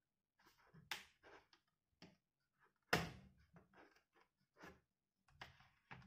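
Light knocks and clicks of a plastic laptop case being handled on a wooden desk, the loudest knock about three seconds in.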